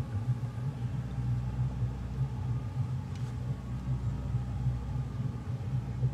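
Outboard boat motor running at low idle, a steady low rumble.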